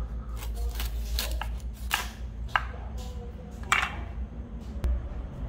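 Knife cutting into noni fruit: a run of sharp, irregular cuts and knocks, about seven in five seconds, the loudest a little before four seconds in, over a low steady rumble.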